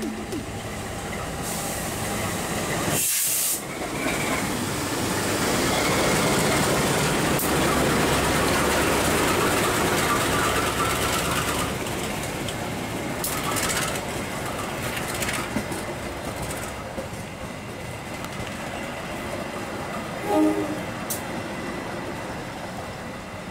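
Carriages of the Dharmawangsa passenger train rolling past close by on ballasted track: a steady rumble and rattle of wheels and bogies, with scattered sharp clicks over the rail joints. A brief higher-pitched tone sounds about twenty seconds in.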